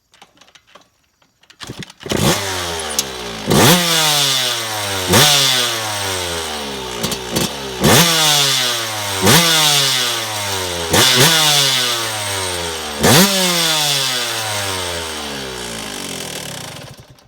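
2001 Yamaha YZ125 two-stroke single-cylinder engine with a full FMF exhaust, starting about two seconds in and then revved hard about seven times, each rev snapping up and falling back slowly. It cuts off shortly before the end.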